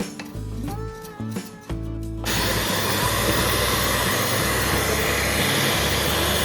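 Background music, then a little over two seconds in a loud, steady motor noise with a strong hiss starts suddenly and keeps running under the music.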